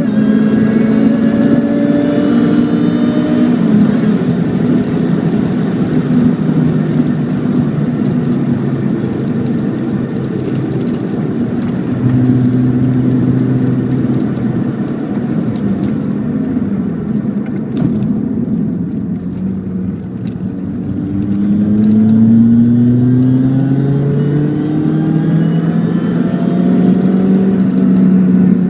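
Toyota Corolla engine running under load, its revs climbing and dropping back several times, with the strongest rise near the end.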